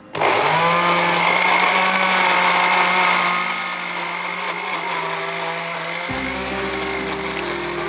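Electric countertop blender switched on, its motor whining at high speed as the blades chop pomegranate seeds, onion, tomato, herbs and a little water into a chutney. It starts suddenly and the whine settles slightly quieter after about three seconds as the mix turns to a paste.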